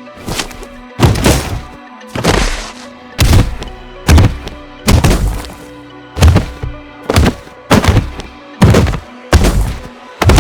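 Cinematic fight sound effects: a rapid string of heavy punch hits and whooshes, one after another at a bit more than one a second, over a steady music bed.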